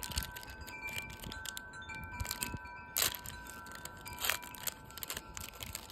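A foil trading-card booster pack crinkling as it is torn open and handled, in three short sharp crackles: one at the start, one about three seconds in and one a second later. Steady ringing chime tones sound behind it throughout.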